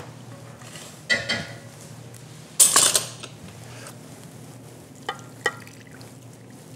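A metal ladle and a stainless-steel saucepan clanking and scraping as the last of the onion soup is scooped out. The loudest clatter comes about three seconds in, and two light clinks follow near the end.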